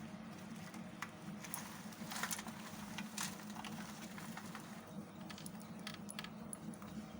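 Knife carving a bar of soap: scattered short scrapes and crisp cuts, a second or so apart, with a cluster of louder strokes around two to three seconds in, over a low steady hum.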